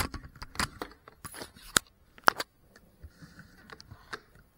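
Irregular sharp clicks and knocks: a loud cluster in the first half, then fainter, sparser ones.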